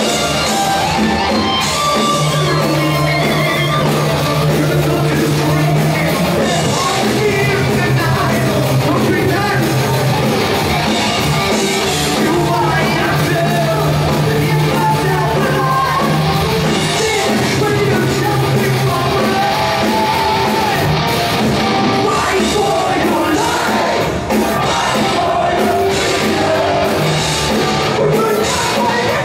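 Heavy metal band playing live: distorted electric guitars, bass and drum kit, with a lead singer's high, shouted vocals. Loud and continuous, recorded from the audience in a club hall.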